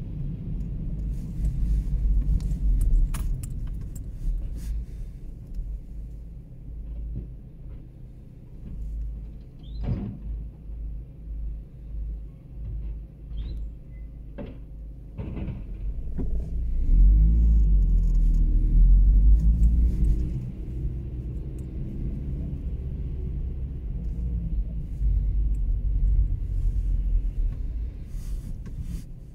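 Faun Variopress rear-loading garbage truck's diesel engine running with a steady low rumble, with a few sharp knocks and clatters as a wheelie bin is handled at the rear. About halfway through the engine runs louder for a few seconds, as it does when it powers the bin lifter.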